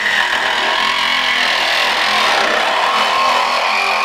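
Ingersoll Rand 12-volt compact cordless reciprocating saw cutting through a double layer of car body sheet metal, running steadily under load.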